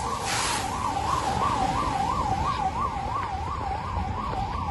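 Emergency siren sounding in a fast up-and-down warble, about three swings a second, with a brief hiss near the start.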